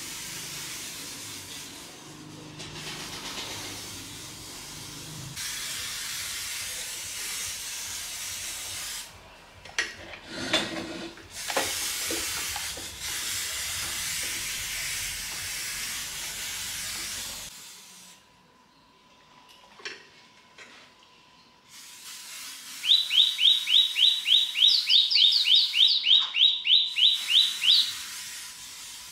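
Spray hissing in several long bursts with short pauses between them, as when parts are spray-painted. Near the end comes a loud, rapid run of short rising squeaks, about four a second.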